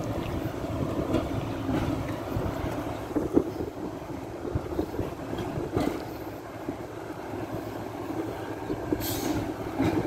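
Wind buffeting the microphone over the steady low rumble of idling diesel truck engines, with a few light knocks.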